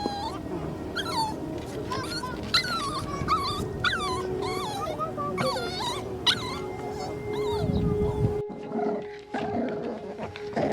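Dog whimpering, many short high cries rising and falling in pitch. About eight seconds in the sound cuts abruptly to a quieter, different scene.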